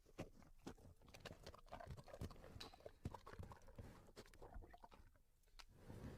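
Faint, irregular clicks and soft knocks from a bear, a few to several a second, between its roars.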